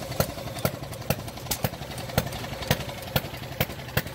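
Small scale-model stationary gas engines running, with a sharp pop about every half second over a steady low drone.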